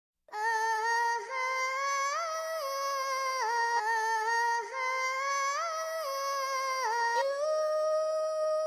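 Wordless humming of a slow melody by a single voice with no beat or bass under it, rising and falling in a repeated phrase, then holding one long note from about seven seconds in.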